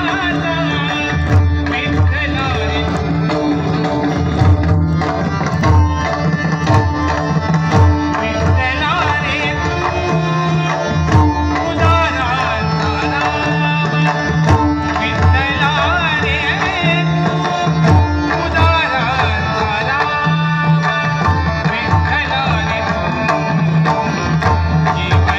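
A Marathi abhang (devotional song) sung by a male voice with harmonium, backed by a large ensemble of some 125 pakhawaj drums playing together. Their deep strokes beat out a steady, continuous rhythm under the singing.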